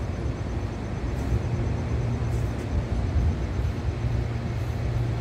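Steady low rumble of rail yard and city background, with a faint hum underneath and no distinct event standing out.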